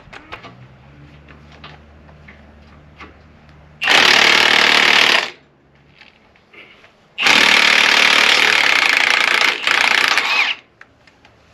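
Impact wrench running in two bursts, one of about a second and a half and a longer one of about three seconds, while bolts are taken off a disc harrow's gang.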